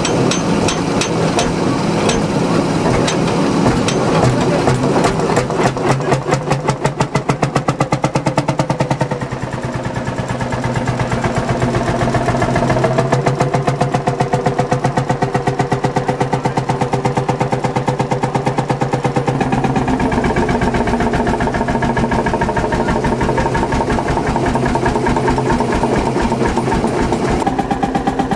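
Vintage tractor engine running with a rapid, regular beat that speeds up over the first few seconds. The tone shifts about twenty seconds in.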